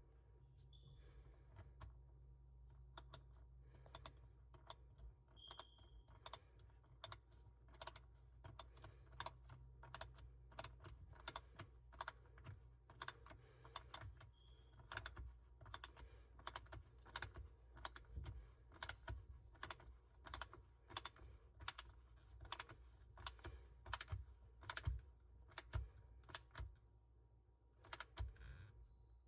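Irregular light clicks and taps, about one or two a second, over a faint low hum.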